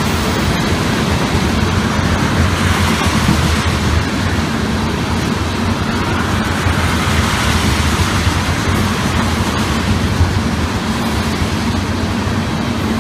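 Freight train of ethanol tank cars rolling past close by: a steady, loud rumble and rattle of steel wheels on the rails.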